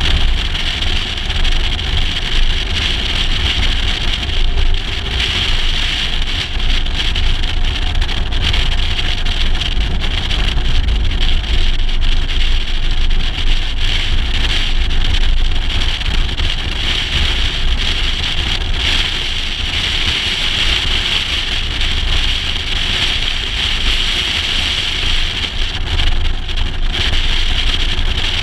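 Wind buffeting an action camera mounted outside a 1956 Mercedes-Benz 300 SL Gullwing driving at speed, with the car's road and engine noise beneath: a steady low rumble and hiss.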